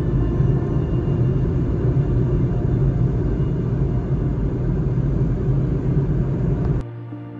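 Steady road noise heard from inside a moving car at highway speed: a low rumble with a faint steady hum. It cuts off suddenly near the end, and soft, slow ambient music with held notes takes over.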